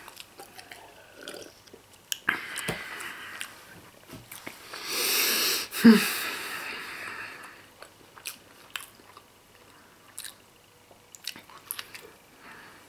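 A man chewing a mouthful of Emmentaler cheese with small wet mouth clicks. There is a long, heavy breath out about five seconds in.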